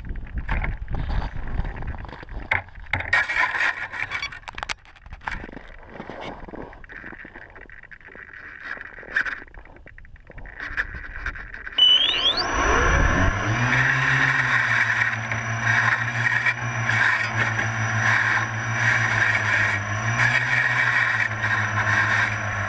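Knocks and rustles of the model being handled, then about halfway through the electric motor and propeller of an RC Falcon III spool up with a rising whine and run steadily, the pitch shifting a little with the throttle as the plane taxis on snow skis, with scraping over rough snow.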